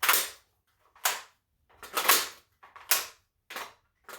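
Sharp clacks of a plum-coloured Tula magazine being rocked into and out of the magazine well of a WBP 5.56 AK 100-series rifle, about one a second, as it is tried for fit.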